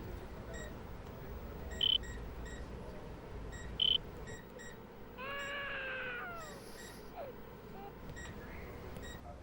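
Hospital patient-monitor beeping: three short beeps about two seconds apart. About five seconds in comes one long cry, about a second and a half, falling slightly in pitch.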